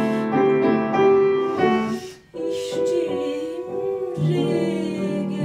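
A grand piano plays a cabaret song accompaniment. About two seconds in there is a short break, then a woman's voice holds a long note with a wide vibrato, and the piano comes back in near the end.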